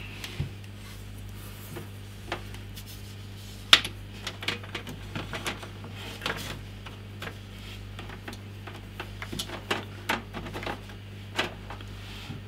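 Irregular small plastic clicks and rustles of cables being handled and pushed through a PC case's cable openings, the sharpest click about four seconds in, over a low steady hum.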